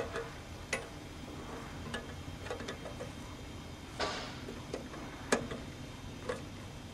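Hose coupling being pushed and twisted onto a brass fitting: about six sharp, irregularly spaced metal clicks and knocks, one about four seconds in a little longer, like a scrape, over a steady low background.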